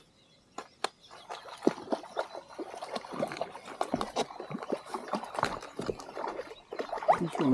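A hooked trout splashing and thrashing at the water's surface as it is brought to the boat, with irregular splashes and a few sharp knocks near the start.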